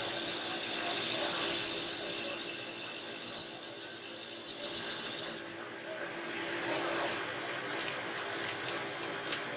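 A power tool running with a steady high-pitched whine, uneven in level, that stops about five seconds in, leaving a quieter hum.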